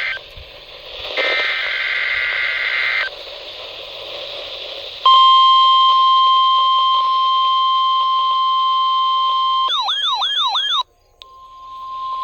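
NOAA Weather Radio receiver: a last screechy burst of SAME digital header data about a second in, a couple of seconds of radio static, then the steady 1050 Hz weather radio warning alarm tone. Near ten seconds a warbling, sweeping tone briefly takes over and cuts off, and the 1050 Hz tone returns quieter amid static.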